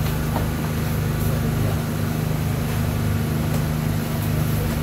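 Steady low machine hum with a constant hiss over it.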